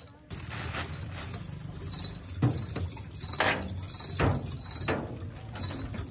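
A plastic bag rustling as it is handled into a bin, with four sharp knocks in the middle of the stretch, over a low steady hum.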